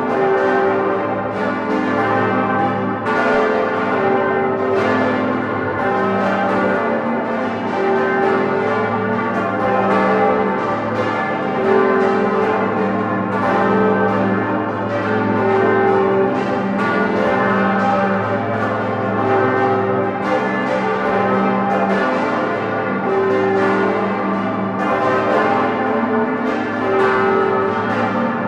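Full peal of eight swinging bronze church bells cast by Grassmayr, the largest about six tonnes and tuned to G, heard close up inside the bell tower. Many strokes overlap without pause in a dense, steady ringing.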